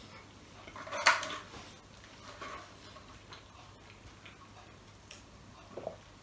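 Close-miked sounds of a person eating: chewing, then sipping soda through a straw from a paper cup. One loud short noisy sound comes about a second in, with faint small clicks after it.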